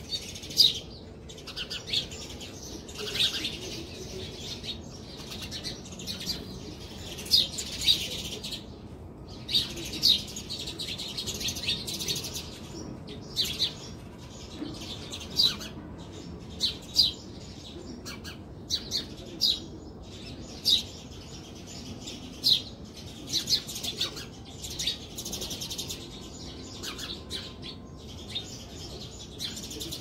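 House sparrows chirping: many short, sharp chirps, one after another, thickening in places into bursts of overlapping chirps from several birds.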